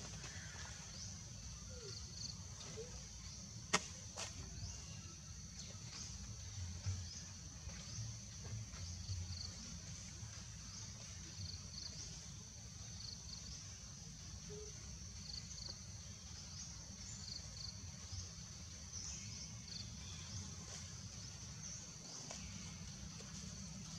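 Outdoor ambience: a steady high-pitched insect drone with a few faint chirps over a low rumble, and a sharp click about four seconds in.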